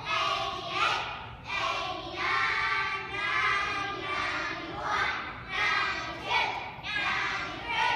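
A class of kindergarten children's voices in unison, counting aloud from 1 to 100 in a rhythmic, sung chant.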